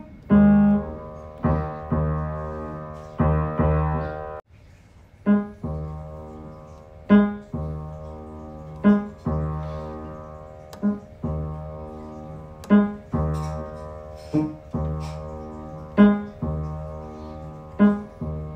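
Piano music: chords struck about every two seconds, each ringing out and fading before the next, with a short break about four and a half seconds in.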